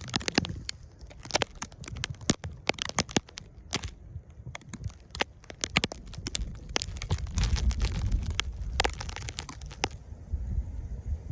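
Sleet pellets ticking against the microphone: a dense, irregular patter of sharp clicks, several a second. A low rumble swells in the latter part.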